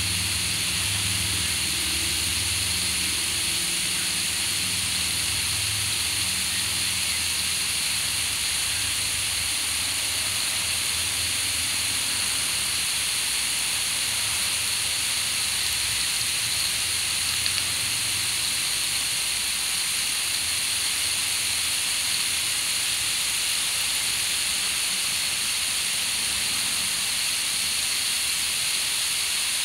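Water from a garden hose spraying onto a lawn, a steady hiss. A low hum underneath fades out around the middle.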